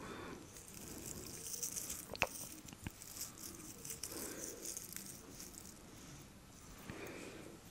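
Long acrylic nails scratching and rustling through beard stubble and over facial skin, close up, a fine crackling texture, with two sharp clicks about two and three seconds in.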